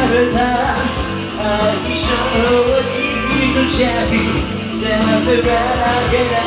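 A man singing a Japanese rock song over a full band backing track.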